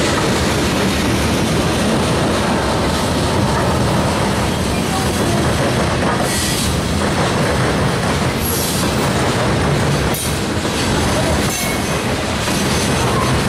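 Freight train of tank cars and covered hopper cars rolling past at close range: a loud, steady rumble of steel wheels on rail, with a few brief high-pitched wheel screeches in the second half.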